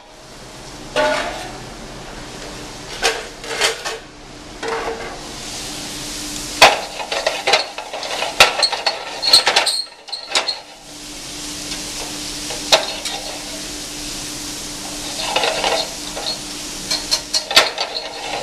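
Chopped onion, celery and pepper sizzling as they go into hot roux in a stainless steel sauté pan. A wire whisk clanks repeatedly against the pan as the vegetables are stirred and the pan is tossed.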